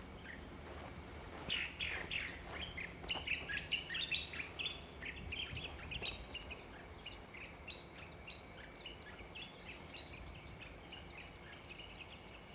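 Birds chirping and calling, a dense run of short, quick chirps that thins out toward the end, over a faint steady high-pitched hum.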